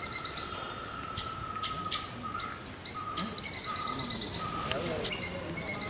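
Birds chirping and calling: short sharp chirps over a steady high note that breaks into short pieces after about two seconds.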